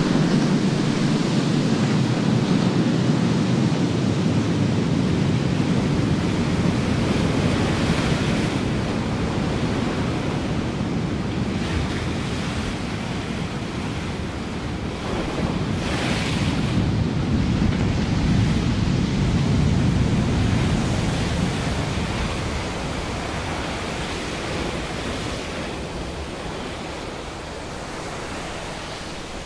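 Ocean surf breaking and washing up a sandy beach: a continuous rush of waves that swells near the start and again about halfway, then eases off near the end.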